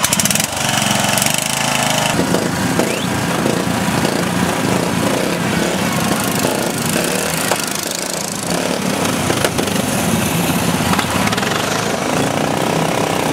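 Several racing ride-on lawn mowers' small engines running together in a dense, loud engine noise, their revs rising and falling.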